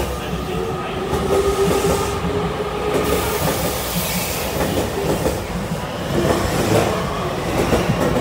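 JR Kyushu 813 series electric multiple unit running alongside the platform with a steady rumble of wheels and motors. A held whine sounds for a couple of seconds near the start, and wheels clack now and then over the rail joints.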